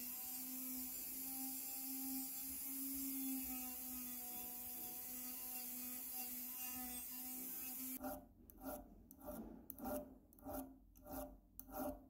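A power drill spinning a sanding drum against a small steel padlock part: a steady motor hum with the hiss of the abrasive on metal. About two-thirds of the way through this gives way to about seven short rasping strokes, roughly two a second.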